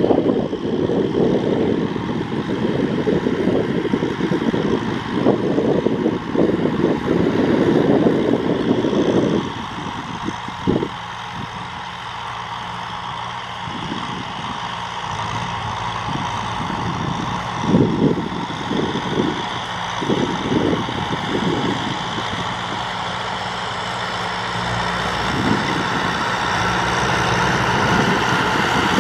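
Kubota M6040SU tractor's diesel engine running steadily while pulling a cultivator through dry soil. Gusts of wind rumble on the microphone through the first third and again about two-thirds of the way through.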